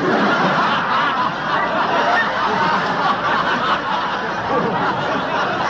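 Many people laughing together, a steady wash of crowd laughter.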